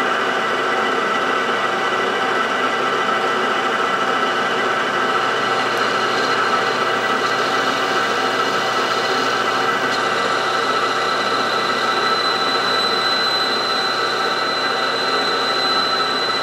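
Small bench metal lathe running at steady speed while a boring bar cuts the bearing pocket bore in the spinning part: a continuous mechanical whir. A thin high whine grows stronger from about twelve seconds in.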